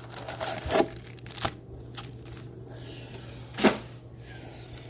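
Cardboard-and-plastic packaging of a trading card box being handled and torn open: a few sharp clicks and snaps with light crinkling, over a steady low hum.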